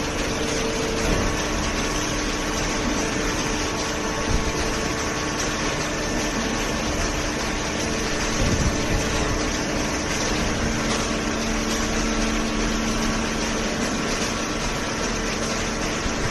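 Cardboard shredder and baler machinery running steadily: a continuous machine hum with a few steady tones over an even whirring noise.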